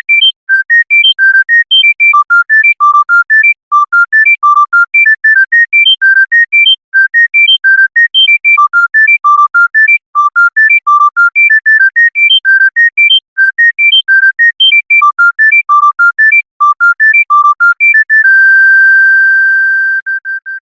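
Monophonic electronic phone ringtone: a fast melody of single pure beeps, about five a second, hopping up and down in pitch. It ends on one long held beep of about two seconds near the end.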